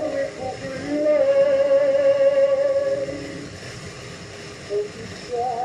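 Early gramophone recording of a Russian romance: a singer holds a long note with vibrato, the music softens, and another vibrato note begins near the end, all over the record's steady surface hiss and crackle.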